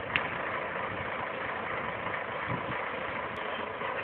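Bus engine idling steadily, with one short sharp click just after the start.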